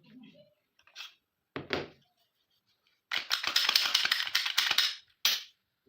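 A Glock pistol's metal parts being handled: a knock, then about two seconds of rapid clicking and clattering, with one more click near the end.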